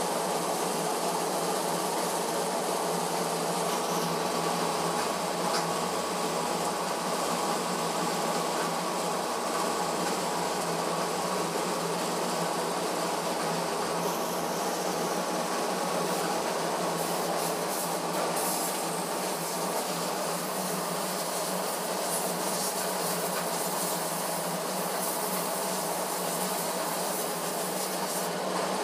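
Diesel injection pump test bench running at a steady speed, driving an Isuzu 4JB1 injection pump under calibration: a constant mechanical whir with a steady hiss from the test nozzles spraying.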